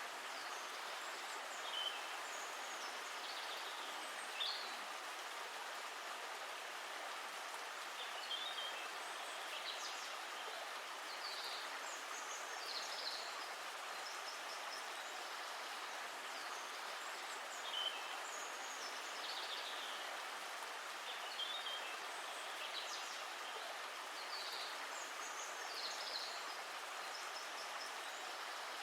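A stream of running water, a steady rush, with birds chirping briefly every few seconds.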